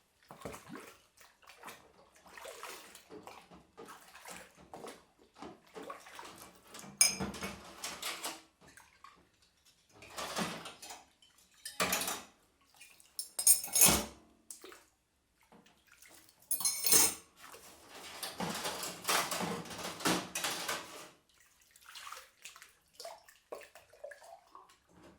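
Dishes being washed by hand in a sink: plates and cutlery clinking and knocking against each other, with short bursts of running tap water and a longer rinse near the end.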